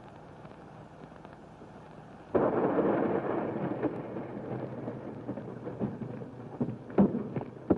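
Faint soundtrack hiss, then a car driving up: engine and tyre noise that starts suddenly about two seconds in, loud at first and slowly fading, with a few sharp knocks near the end.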